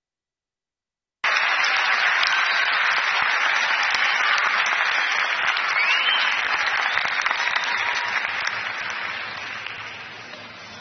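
Arena crowd applauding, starting suddenly about a second in and slowly fading over the last few seconds, with a short rising whistle about halfway through.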